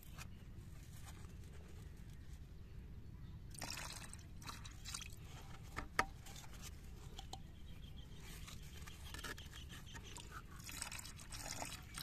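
Faint handling sounds of a rubber-gloved hand and a small plastic bottle over a plastic bucket: scattered rustling and scraping, with a single sharp click about six seconds in. Near the end comes a brief spell of liquid trickling into the bucket.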